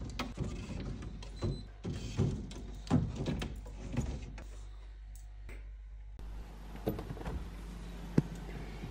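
Glass bottles knocking and clinking against each other and the wooden rack shelf of a mini drinks fridge as they are slid in one by one. There is a rapid series of sharp knocks over the first few seconds, then a couple of isolated clicks.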